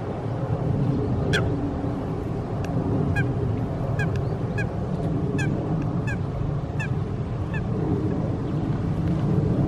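Eurasian coots giving a series of short, sharp calls, about nine in all, from a feeding flock over a steady low rumble.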